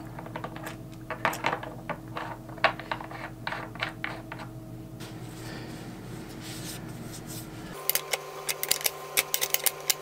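Irregular light clicks and taps as the new ceramic valve cartridge is handled and threaded into a faucet's valve body, over a steady low hum. The clicks thin out midway and pick up again near the end.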